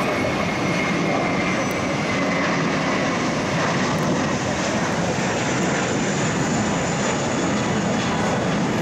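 Jet engines of an Airbus A320 at takeoff power as the airliner climbs away after departure: a loud, steady roar.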